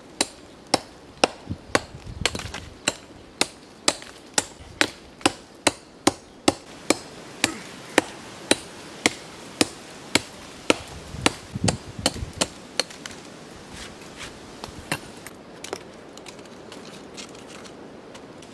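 A hammer striking volcanic rock, with sharp blows at a steady pace of about two a second. The blows slow and stop about three-quarters of the way through, leaving faint rustling.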